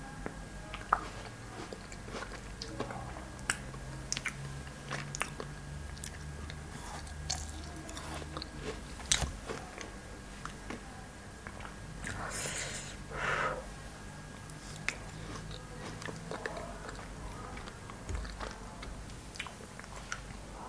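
Close-miked biting and chewing of frozen cherries: a run of sharp, irregular crunches and clicks, with a longer crunching stretch about twelve seconds in.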